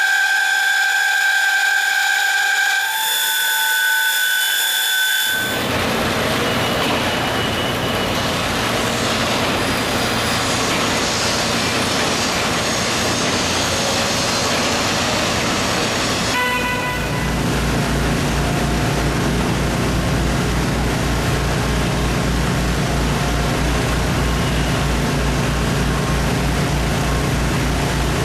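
A horn held for about five seconds, its pitch stepping down about three seconds in. It is followed by a steady rushing hiss of street noise, then, from a little past halfway, an engine running steadily with a fast, even low pulse.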